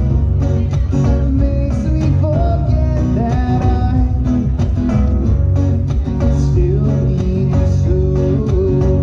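Live band music led by a strummed acoustic guitar with a second guitar, over a steady beat and a heavy low end, with a melody line that bends up and down in pitch.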